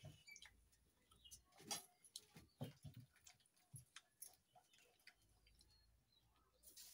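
Faint eating sounds: fingers scraping and picking instant noodles off a steel plate, and wet mouth smacks of chewing. These come as a scatter of small clicks and smacks, busiest in the first half.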